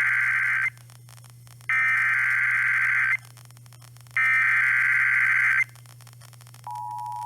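Emergency Alert System SAME header: bursts of digital data tones, each about a second and a half long, repeated with roughly a second of pause between them. Near the end the steady two-tone EAS attention signal (853 and 960 Hz) begins, announcing a new National Weather Service severe thunderstorm warning.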